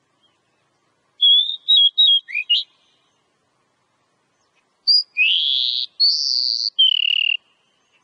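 Oriental magpie-robin singing two whistled phrases. The first is a quick run of short notes ending in a rising one; after a pause comes a longer phrase of held whistles that rise, hold high, then drop lower at the end.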